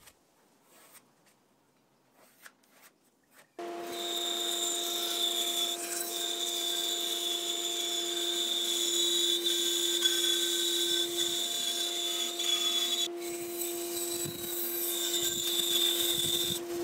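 A bandsaw cutting a thick reclaimed-hardwood table leg to its curved shape: a steady hum with a high whine over the hiss of the blade in the wood. It starts abruptly about three and a half seconds in, after a near-silent stretch with a few faint taps.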